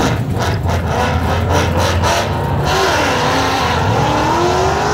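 Drag-racing car engines at the strip: a heavy rumble with crackles, then from about three seconds in an engine note climbing steadily as a car accelerates hard down the track.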